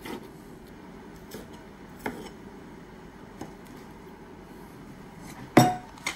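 Kitchen knife cutting tomatoes on a wooden cutting board: a few soft knocks of the blade against the board, then one sharp knock near the end.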